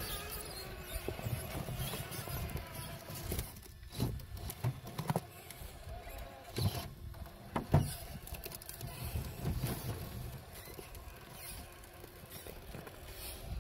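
Axial SCX6 1/6-scale RC rock crawler climbing a boulder: its electric drivetrain runs in short spurts while the tyres and chassis scrape and knock against stone. A few sharp knocks come in the middle.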